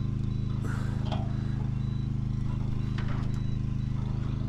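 Pickup truck's engine idling steadily, with a few faint knocks about one and three seconds in.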